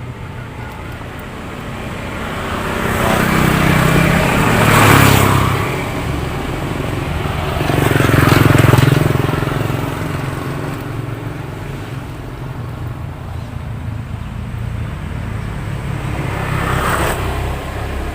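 Motor vehicles passing on a road: two loud passes swell and fade about four and eight seconds in, over a steady low engine hum, and a lighter pass comes near the end.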